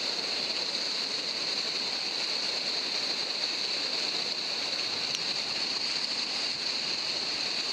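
Whitewater river rapids rushing steadily at close range, an even hiss-like noise without a break.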